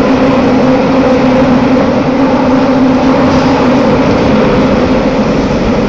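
Toei Oedo Line linear-motor subway train running through a tunnel, heard from inside the car: a loud, steady rumble with a steady low hum.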